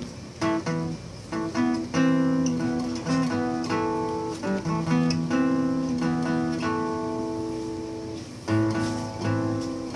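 Acoustic guitar played alone, chords picked and strummed and left to ring, a new chord every half second to a second.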